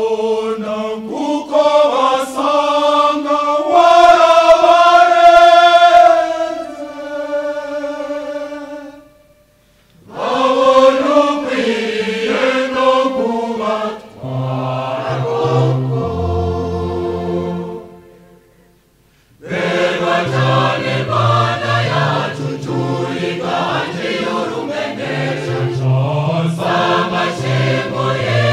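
Choir singing a Kinyarwanda song in harmony. The phrases break at two short pauses, about nine and about eighteen seconds in. A held chord swells and fades before the first pause, and deep bass notes stand out in the middle section.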